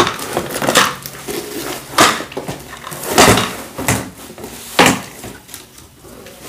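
Cardboard shipping box being handled and tipped, rustling, with a series of sharp knocks and clatters about once a second as supplement tubs and bottles are taken out and set down on a glass-topped table.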